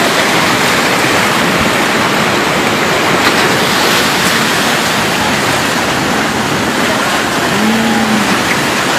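Muddy flash flood (debris flow) rushing past, carrying wreckage; a loud, steady rushing of water.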